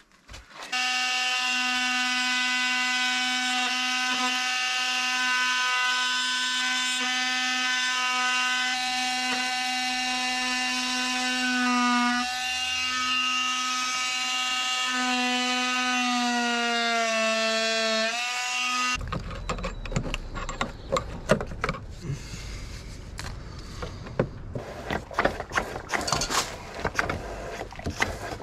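Cordless oscillating multi-tool running with a steady high buzz as it cuts a notch into wood siding; its pitch sags twice as the blade bites under load. It stops about 19 seconds in and gives way to irregular clicks and knocks of handling.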